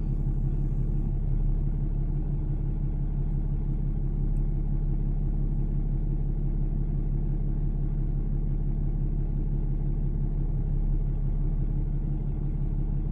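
A vehicle engine running steadily, a low, even drone with a constant hum that does not rise or fall.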